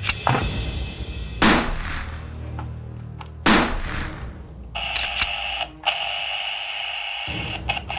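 Electronic toy sound effects: a burst of gunfire-like shots with two loud falling sweeps, then from about five seconds in a steady electronic hiss with a held high tone from a toy walkie-talkie.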